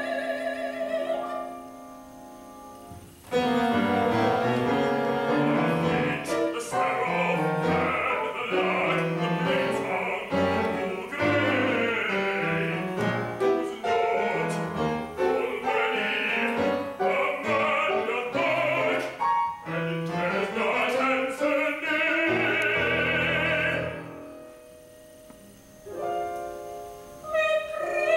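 Live opera music: a singer ends a phrase, then after a short lull comes a loud, busy passage of singing and instrumental accompaniment with many moving notes. It drops to a soft stretch, and a singing voice comes back near the end.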